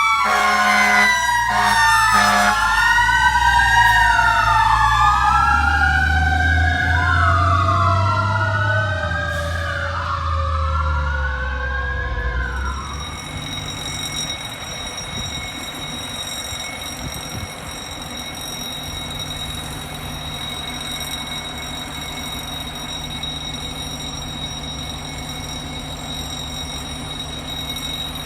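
Fire truck sirens wailing, several overlapping and rising and falling, with a heavy diesel engine rumbling under them. One siren's tone slowly falls as it winds down. The sirens stop about halfway through, leaving a steady engine idle with a faint high whine.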